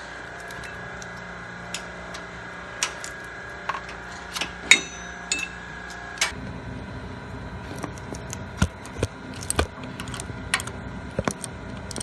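Irregular metal clicks and clinks of a socket wrench working the adjusting bolts on a Zamboni's horizontal auger drive, as they are turned in to tension the auger chain, over a steady hum. One knock about five seconds in is the loudest and rings briefly.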